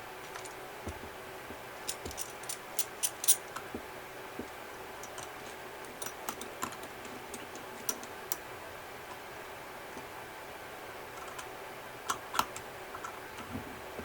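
Scattered light clicks and taps of small hand tools during leather repair work, coming in clusters over a steady background hum.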